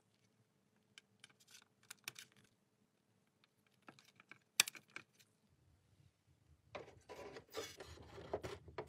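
Light clicks and taps of a craft-knife blade and gloved fingers on a hard plastic toy hull, with one sharper click about halfway, then a few seconds of plastic scraping and rubbing near the end.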